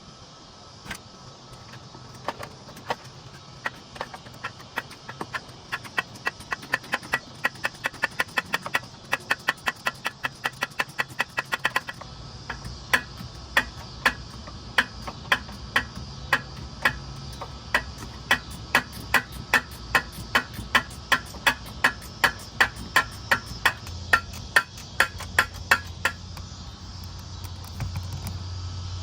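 Background music with a steady clicking beat that quickens at first and then settles to about two beats a second, with a low bass line coming in partway through.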